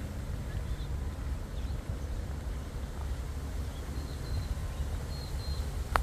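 Wind buffeting the microphone as an uneven low rumble, with a few faint, short bird chirps high above it and a single sharp click at the very end.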